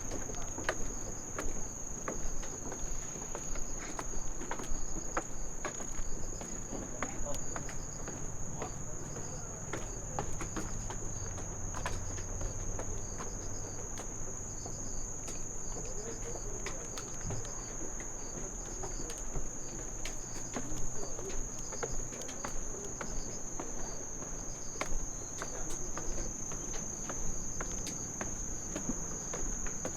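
Insects trilling in one steady, unbroken high note, with a second insect pulsing faintly just below it. Short clicks like footsteps on a path and a low rumble of outdoor background run along underneath.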